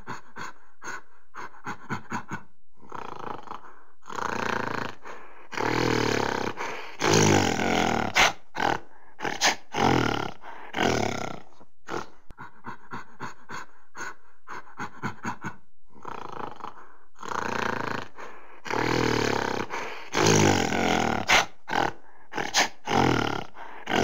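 Gorilla grunts and growls: a run of short grunts that builds into longer, deep, rough growls. The same sequence plays a second time, starting about halfway through.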